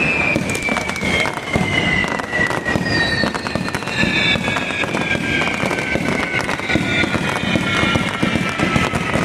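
Firework castle set piece burning: dense crackling and popping throughout, with several whistles sliding slowly down in pitch across the seconds.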